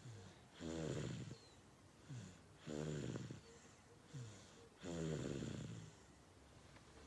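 A baby girl snoring in her sleep: three loud, pitched snores about two seconds apart, each with a short falling breath before it.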